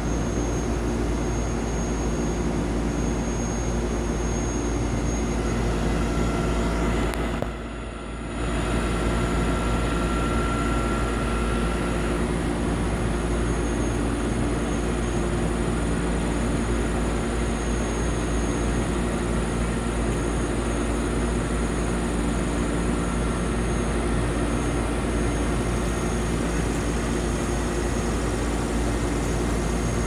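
Heavy rotator tow truck's diesel engine running steadily while its boom holds and positions a tall bell-tower pillar. A faint high whine comes in for a few seconds, and the sound briefly drops out for under a second about eight seconds in.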